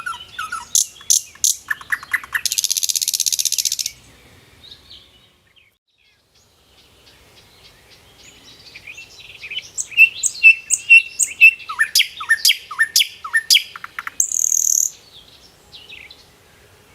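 Songbirds chirping and calling in quick short notes and downward-sweeping whistles, with a harsh rasping call lasting about a second and a half near the start. A brief lull about a third of the way in, then a dense run of chirps ending in a short rasp.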